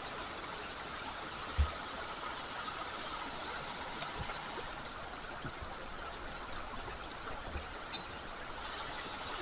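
River water flowing with a steady rushing sound. A soft low thump about one and a half seconds in, with a few fainter knocks later.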